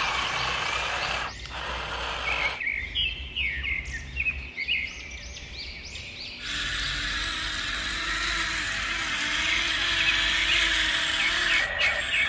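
Small birds chirping in short rising and falling calls over a steady outdoor hiss. The background cuts in and out abruptly a few times.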